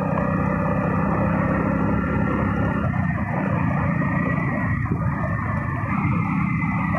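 Motorcycle engine running steadily while riding along a road, with wind and road noise.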